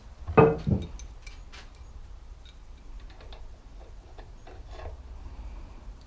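Light, irregular metallic clicks and taps of a spanner working on the bike's fork parts, with one louder short sound about half a second in.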